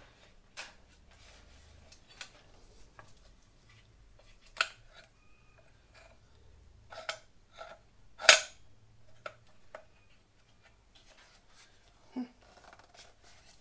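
Scattered clicks and knocks as an Einhell TC-MA 1300 wall chaser's plastic housing and metal blade guard are handled and turned over, the sharpest knock about eight seconds in.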